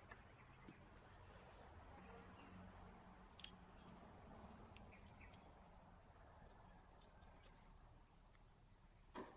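Near silence: a faint, steady high-pitched whine, with a few small clicks of metal valve parts being handled. The sharpest click comes about three and a half seconds in, and a softer knock comes near the end.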